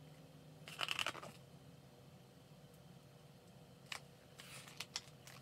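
Paper rustling as the pages of a large picture book are handled and turned: a crinkly swish about a second in, then a few faint ticks and short rustles near the end.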